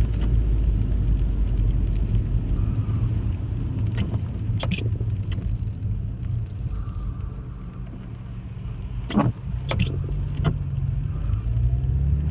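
Car driving, heard from inside the cabin: steady low engine and road rumble with a few sharp clicks and rattles. The rumble eases off past the middle, then the engine note rises again near the end as the car pulls away.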